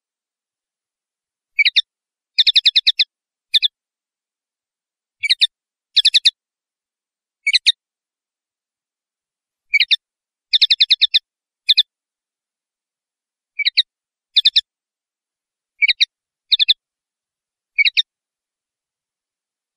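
Common linnet singing: short twittering phrases, some brief single notes and some quick runs of rapidly repeated notes, coming every second or so with silence between.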